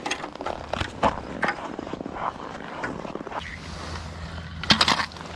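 Boots crunching and scraping on snow-covered ice, then handling at an ice hole. Irregular crunches and clicks over a low steady hum, with a louder burst of crackling near the end.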